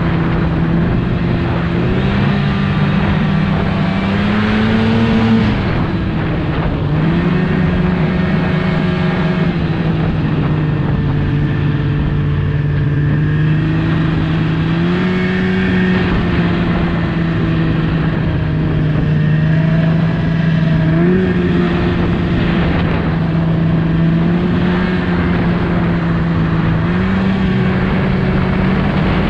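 Snowmobile engine running under way as the sled travels along a packed trail, its pitch stepping up and dropping back several times with changes of throttle.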